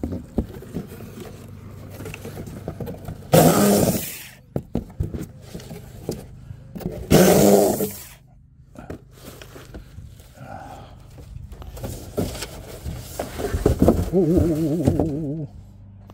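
Electric saw cutting through cardboard box seams in short bursts of about a second each, around three and seven seconds in, with quieter rattling between. A longer, louder stretch of cutting follows near the end, with a wavering tone over it.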